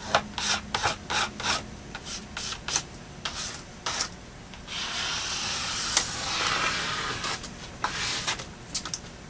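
A plastic credit card rubbed over packing tape laid on foam board, smoothing it flat and pressing out the air bubbles. It makes quick short scraping strokes, about two or three a second, then one longer continuous rub past the middle, then a few more short strokes near the end.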